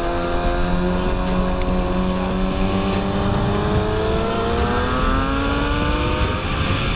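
600 cc inline-four sport-bike engine under way, held at a steady pitch through a bend and then rising in pitch as it accelerates from about halfway in, with wind rushing over the microphone.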